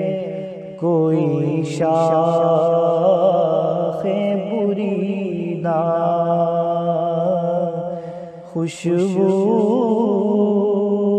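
A man singing an Urdu naat alone, in long, ornamented held notes with a wavering pitch. He breaks off briefly for breath about a second in and again near the end.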